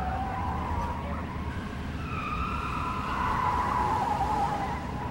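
Road traffic: a car going by with a low rumble and a wavering whine that swells about halfway through.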